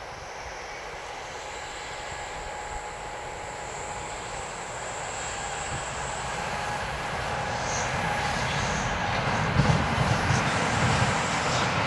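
Electric locomotive hauling a long container freight train on approach, the running noise of the train growing steadily louder, with a thin steady whine above it. In the last couple of seconds the low rumble and knocking of the wagons' wheels on the rails comes in strongly.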